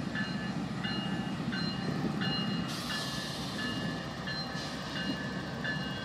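Electronic locomotive bell dinging about one and a half times a second over the low rumble of GE Dash 9-40CW diesel locomotives as the train starts to move slowly. A hiss rises for about two seconds midway.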